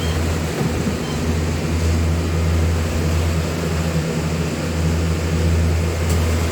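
A steady low machine hum, unchanging, from a running motor.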